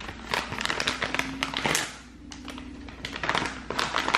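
Plastic packet of a Tati Beauty Blendiful makeup sponge being opened by hand: irregular crinkling and crackling with small clicks throughout.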